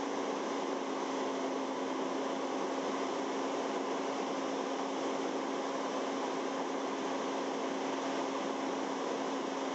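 Fire truck engine and water pump running steadily during a pumping operation: an even drone with a constant hum.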